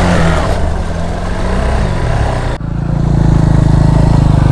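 Motorcycle engine running at low revs on a muddy trail. About two and a half seconds in, the sound cuts abruptly to a louder, steady engine running at low revs close by.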